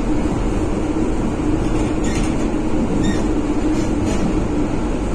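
Cabin running noise inside a 1963 PaFaWag EN57 electric multiple unit's passenger car: a steady rumble with a constant hum. A few light clicks come about a second apart in the middle.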